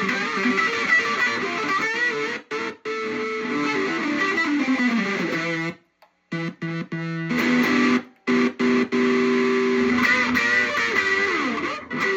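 Distorted electric guitar playing held notes and bends, chopped again and again into sudden silences by a light switch wired in as a kill switch, with a quick stutter of cuts about halfway through. The guitar's intonation is off, by the player's account.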